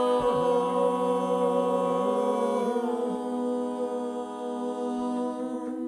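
Closing a cappella song: voices hold a final sustained chord, hummed or chanted, shifting pitch a couple of times and fading slightly near the end.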